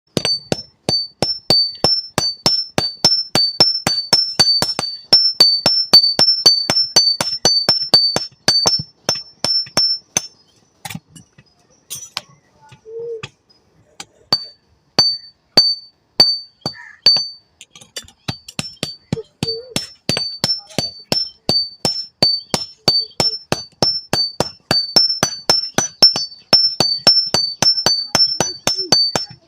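Blacksmith's hammer striking hot metal on an anvil in quick, even blows, about three a second, each with a bright metallic ring. The pitch of the ring alternates from blow to blow. The hammering stops for about four seconds near the middle, with only a few scattered knocks, then starts again at the same pace.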